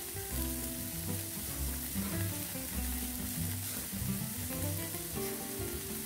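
Chopped milkfish sisig mixture sizzling and spitting on a hot sizzling plate in melted margarine as it is tipped out of a bowl and stirred.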